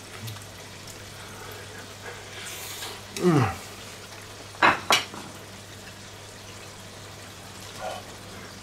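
Deep-fried food sizzling faintly in a deep fryer over a steady low hum. About three seconds in there is a short falling vocal sound, and soon after two sharp clicks follow in quick succession.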